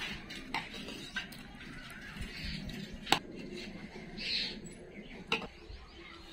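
Metal ladle clinking and scraping against a metal pot and stainless steel plates while thick dal is served out, with a few sharp clinks, the loudest about three seconds in. Birds chirp faintly now and then.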